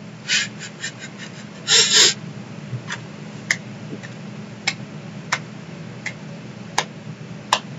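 People laughing over a webcam call: a quick run of short laughs in the first second, a louder outburst about two seconds in, then isolated short bursts about once a second.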